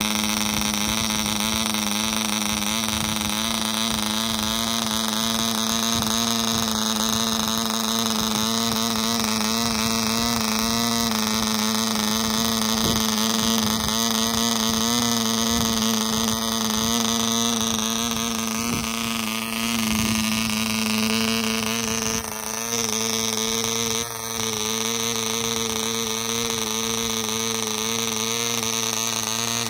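VA reproduction Kalper Mk. II 0.32 cc piston-port model diesel engine running steadily with a high, even note while driving a 6x3 propeller. The note shifts slightly about two-thirds of the way through, and there are two brief dips in level shortly after.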